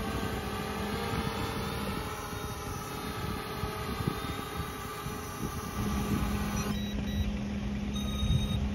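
ZLL SG908 quadcopter drone hovering overhead, its four brushless motors and propellers giving a steady many-toned hum, with wind buffeting the microphone. About seven seconds in the drone's hum stops, leaving wind rumble and a low steady hum.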